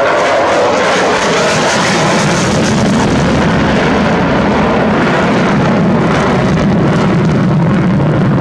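Lockheed Martin F-22 Raptor's twin Pratt & Whitney F119 afterburning turbofans: loud, steady rushing jet noise as the fighter flies past overhead, growing deeper after about two seconds.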